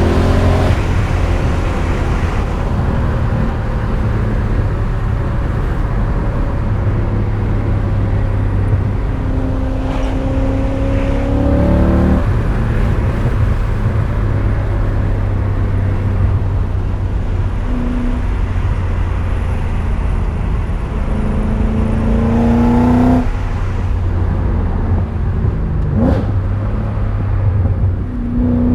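BMW E39 M5's 4.9-litre V8 pulling hard under acceleration, its pitch climbing and then dropping off sharply at gear changes about twelve and twenty-three seconds in, over a steady low road rumble.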